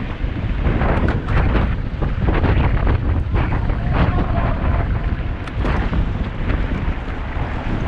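Wind buffeting the microphone of a camera mounted on a mountain bike ridden fast, over the rumble of knobby tyres on a gravel road, with frequent short clicks and rattles from the bike over the rough surface.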